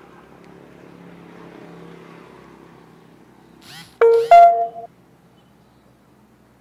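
A vehicle horn sounds twice in quick succession about four seconds in, loud, short and steady in pitch, over a low rumble of passing traffic.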